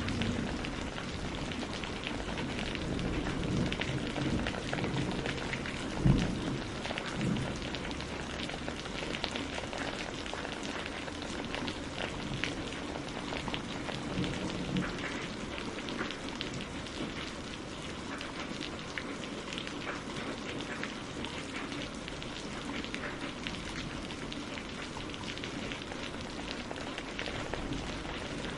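Steady rain pattering on a greenhouse's glass roof, a dense hiss of many small drop impacts. A low rumble of thunder sounds under it in the first several seconds, with a sharp low thump about six seconds in.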